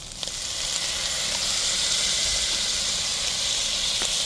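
Soy sauce poured into a hot pan of vegetables and scrambled egg, sizzling. The hiss swells up in the first second and then holds steady.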